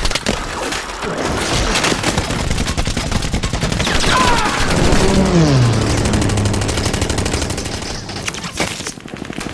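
Film battle sound: dense, rapid machine-gun fire with explosions. About four to five seconds in, a sound glides down in pitch and settles into a low, steady tone for about a second.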